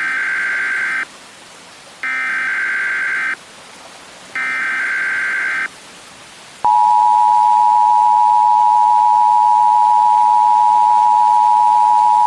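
Emergency Alert System tones: three short buzzy data bursts of the SAME header, about a second apart, then the steady two-tone attention signal starting about six and a half seconds in. A faint hiss runs underneath.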